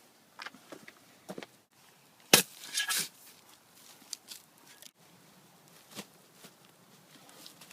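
A run of scattered knocks and clicks, with one sharp loud hit about two seconds in followed by half a second of scraping.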